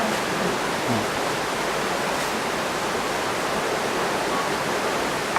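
A waterfall just below, its falling water making a steady, even rushing noise with no breaks.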